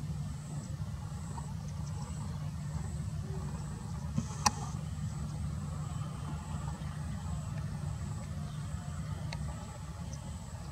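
Jet engines of a Boeing 737 airliner giving a steady low rumble as it taxis slowly, with one sharp click about four and a half seconds in.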